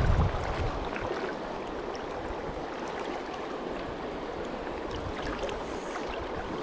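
River water rushing steadily over the riverbed, an even continuous rush with a few faint ticks.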